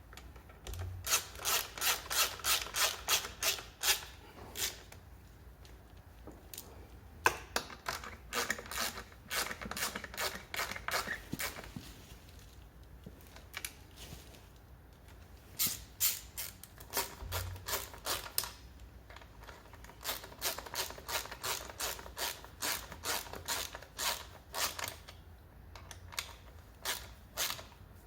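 Runs of sharp clicks from hand tools working on a scooter, about four a second, in several spells of a few seconds with pauses between.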